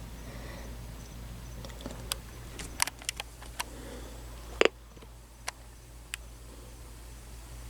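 Irregular sharp clicks and taps, the loudest a little past halfway, over a steady low electrical hum.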